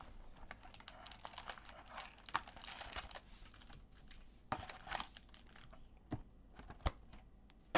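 Quiet handling of a cardboard box of 2019 Chronicles football card packs as it is opened and emptied by hand: small taps and clicks of cardboard with rustling and crinkling of the pack wrappers. A few louder knocks come about four and a half to five seconds in, and a sharp tap near seven seconds.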